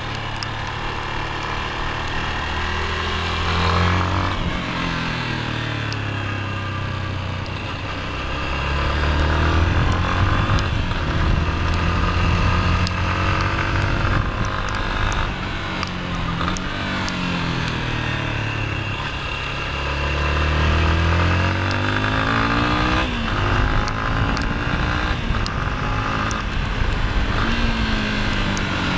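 Yamaha Lander 250's single-cylinder four-stroke engine heard from onboard while riding. It revs up and eases off several times as the bike accelerates and slows between corners, over a steady rush of wind noise.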